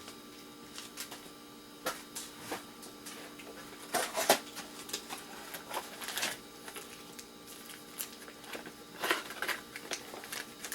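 Scrap electronic parts being handled and set down: scattered light clicks and clacks of small plastic and metal pieces, with louder clatters about four seconds in and again near nine seconds.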